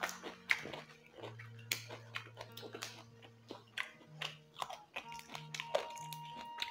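Crunching and chewing of raw papaya stems and leaves, a scatter of sharp crisp clicks, over quiet background music with long held low notes.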